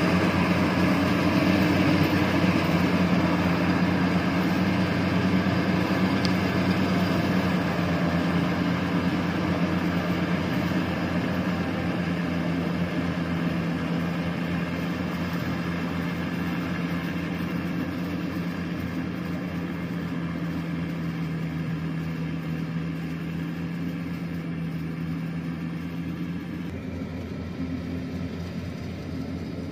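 Yanmar YH 850 rice combine harvester running while it harvests: a steady diesel engine drone together with the threshing machinery, slowly fading as the machine moves away. Near the end the sound changes to another combine harvester working farther off.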